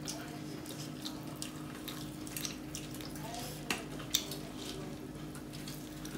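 Hand mixing and squeezing rice with curry on a steel plate, making many short wet, sticky clicks, over a steady low hum.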